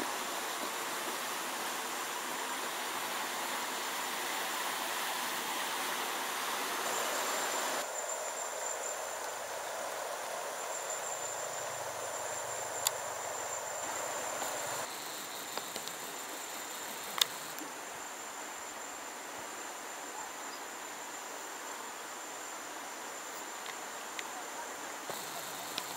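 Steady rush of a river in flood, with an insect's steady high-pitched drone above it that grows stronger about eight seconds in. The rush drops back a little about eight seconds in and again about fifteen seconds in, and a couple of sharp clicks come near the middle.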